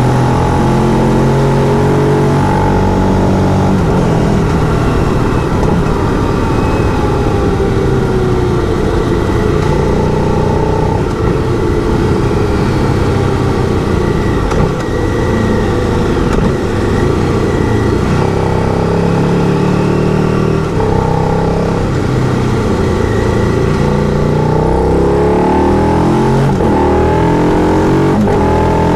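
Motorcycle engine under way, holding steady speeds with several changes in pitch and revving up near the end, over wind and road noise.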